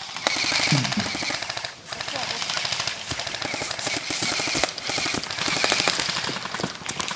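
Airsoft guns firing on full auto: a dense, rapid rattle of shots in long bursts, with a short lull about two seconds in.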